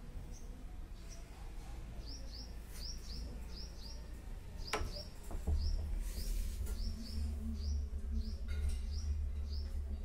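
A small bird chirping over and over, short high falling chirps, often in quick pairs, about two a second. A low rumble comes in about halfway through, with a single click just before it.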